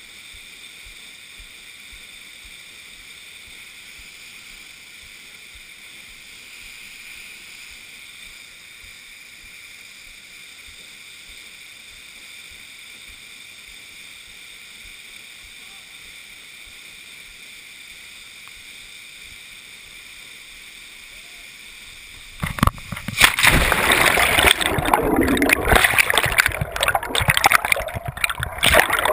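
Faint, steady hiss of river water and a small waterfall spilling into the pool. About three-quarters of the way through it cuts to a sudden loud, churning rush of water and bubbles as the camera is plunged underwater.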